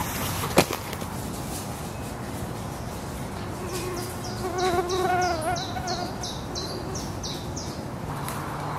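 A flying insect buzzing close by from about four seconds in, its pitch wavering as it passes. Behind it a bird repeats a quick run of short high notes, and a single sharp click comes just after the start.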